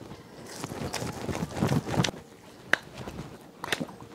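Masa being ground on a stone metate: the stone mano rubs and scrapes over the dough in several uneven strokes, with a couple of sharp clicks later on.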